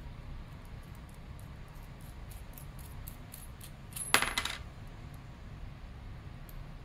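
Small metal lock parts ticking faintly as the Illinois Duo wafer cam lock is handled and taken apart, then a sharp metallic clink with a brief high ring about four seconds in as the removed steel cam comes off and lands.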